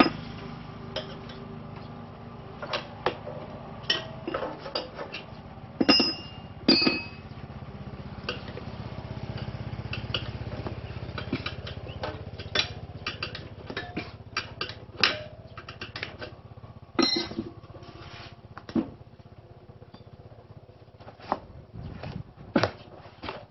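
Irregular metallic clicks and clanks as a tyre is worked off a motorcycle's spoked rear wheel rim by hand, including two ringing metal clinks about six and seven seconds in, over a steady low hum.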